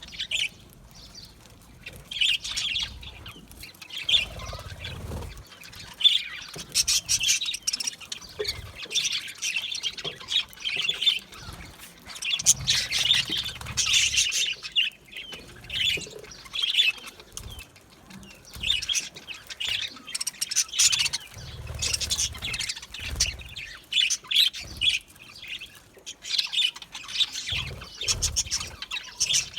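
Budgerigars chirping and warbling, many short high calls overlapping in quick runs, with occasional low rumbles underneath.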